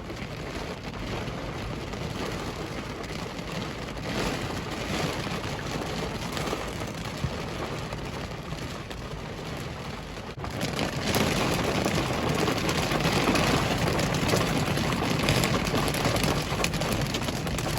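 Heavy thunderstorm rain pouring down, turning suddenly heavier about ten seconds in.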